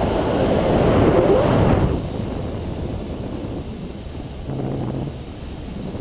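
Wind rushing over the microphone of a camera carried by a tandem paraglider in flight, a steady low rumble that is strongest for the first two seconds and then drops to a lighter buffeting.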